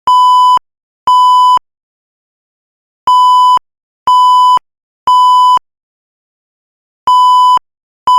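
Building fire alarm sounding its evacuation signal: loud half-second beeps of one steady pitch in the temporal-three pattern, three beeps a second apart, then a pause of about a second and a half, repeating.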